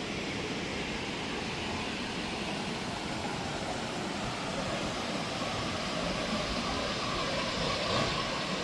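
Waterfall's steady rushing noise of falling water, even and unbroken.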